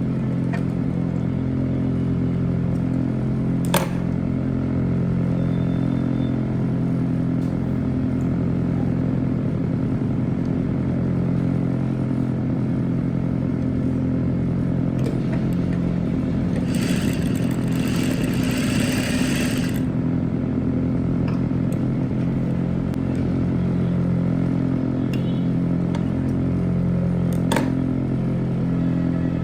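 Electric sewing machine running steadily as a seam is stitched, a constant motor hum with a couple of sharp clicks. A brief rustle of fabric comes about two-thirds of the way through.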